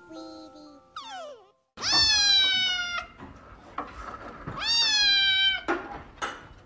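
A grey-and-white kitten meowing loudly twice. Each meow lasts about a second, starts high and sags a little in pitch, and the second comes a couple of seconds after the first.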